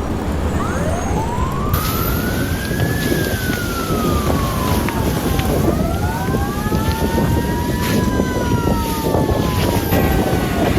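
Emergency vehicle sirens in a slow wail, rising and falling every few seconds. A second, lower siren joins about halfway through. Both sound over a loud, steady rushing noise.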